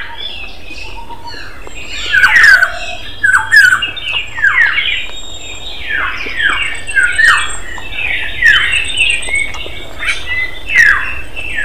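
Birds squawking: harsh calls that each drop sharply in pitch, coming in quick runs of two or three again and again.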